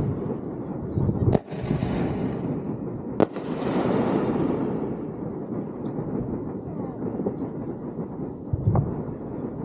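Fireworks going off: two sharp bangs about two seconds apart, each followed by a crackling hiss that fades away, then a duller thump near the end.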